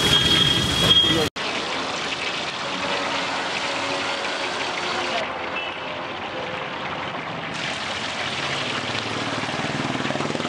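Marinated pomfret sizzling steadily as it fries in shallow oil on a wide flat street-stall pan, an even hiss. About a second in there is a sudden cut; before it, a louder mix of voices and a low hum.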